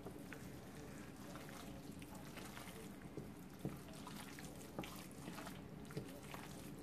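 Faint soft scraping and wet squishing of a wooden spatula spreading a creamy rice-and-meat casserole mixture in a ceramic baking dish, with a few light taps, over a low steady hum.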